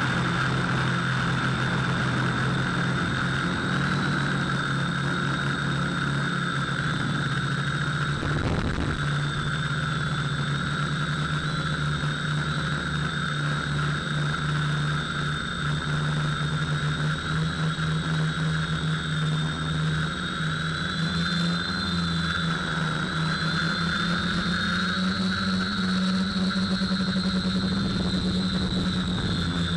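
FPV quadcopter's electric motors and propellers whining steadily through the onboard camera, the pitch wavering with the throttle and rising somewhat about three quarters of the way through as the drone climbs. A brief thump about eight and a half seconds in.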